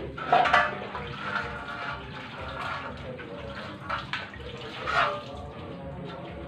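Water splashing and sloshing in a tall metal can as a hand dips into it, with a few louder splashes about half a second in and near the fifth second.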